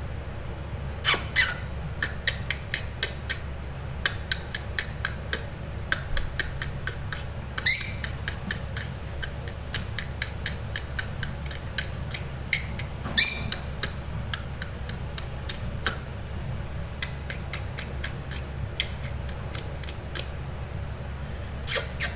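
Young lovebird chicks, about 25 days old, chirping in rapid short calls, broken by a few louder squawks, over a steady low hum.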